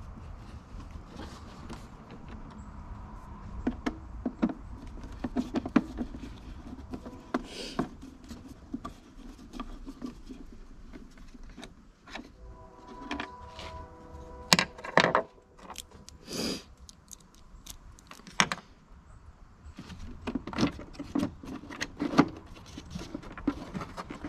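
Irregular clicks, knocks and rattles of a screwdriver and hands working plastic airbox parts and hoses loose in a car's engine bay.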